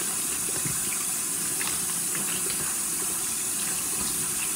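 Bathroom sink tap running steadily, water pouring into the basin during a rinse after tooth brushing.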